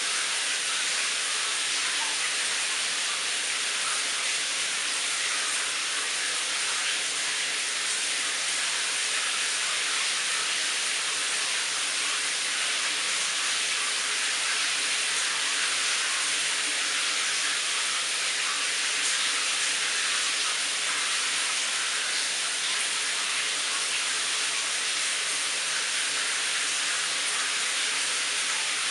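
Shower running: water spraying onto a tiled stall as a steady, unbroken hiss.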